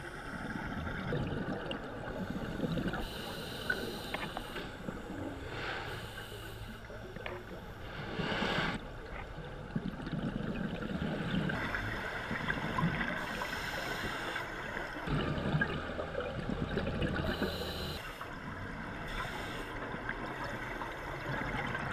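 Scuba diving heard underwater: exhaled bubbles gurgling from a diver's regulator in bursts every few seconds over a steady water hiss.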